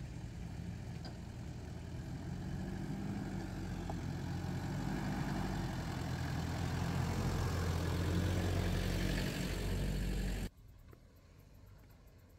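Nissan Terrano II's 2.7 TDi diesel engine running at low revs as the 4x4 crawls up a dirt track, a steady low hum that grows louder as it approaches. About ten seconds in it cuts off abruptly to a much fainter background.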